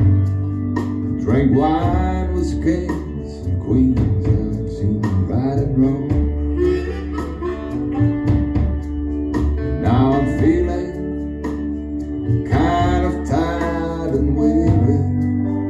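A guitar-led blues song played back over a hi-fi system driven by Quad II valve power amplifiers with KT66 output tubes, heard through the room's floorstanding loudspeakers. The song has a steady bass line and recurring phrases of bending, gliding notes.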